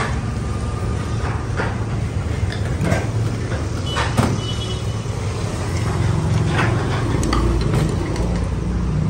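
Steady low rumble of road traffic, swelling for a couple of seconds about six seconds in as a heavier vehicle passes. Scattered light clicks and clinks of plates and chopsticks are heard over it.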